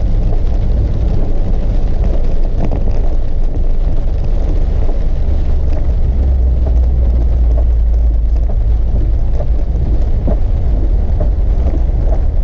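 Car driving, heard from inside: a loud, steady low rumble of road and engine noise, with scattered faint ticks.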